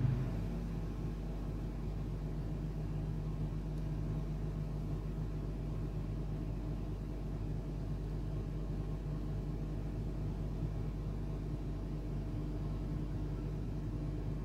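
A steady low rumble with a faint hum, unchanging throughout.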